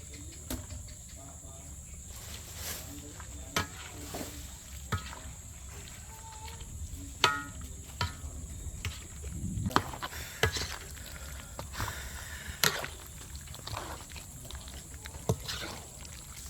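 Irregular knocks and taps, about a dozen of them, the sharpest ones near the middle and later on, over a steady high-pitched hum.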